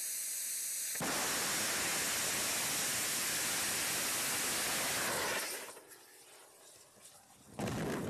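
MOMO-2 sounding rocket at launch: a steady hiss, then about a second in the engine's exhaust rises to a loud, even rush. The rush drops away after a few seconds as the engine fails, and near the end a sudden loud blast comes as the rocket falls back and explodes on the pad.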